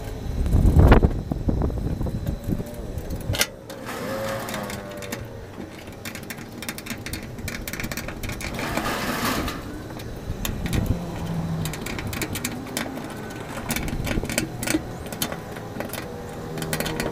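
Socket and ratchet clicking, with scattered metal taps, as the nuts on a fuel pump's mounting flange are run down and tightened on the fuel tank. There is a heavy thump about a second in.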